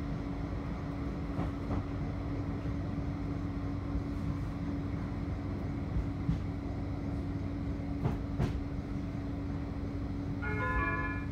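Bombardier Flexity 2 tram running, heard from inside the car: a steady rumble of the wheels with a steady hum and a few sharp clicks from the rails. Near the end, a short electronic chime of several notes sounds.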